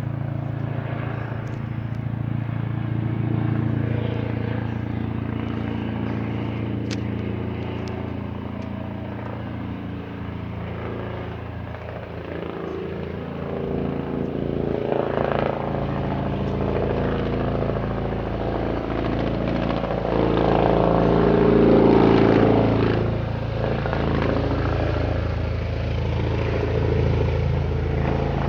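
Police helicopter flying low overhead: a steady drone of rotor and engine, swelling louder about three seconds in and again about twenty-one seconds in.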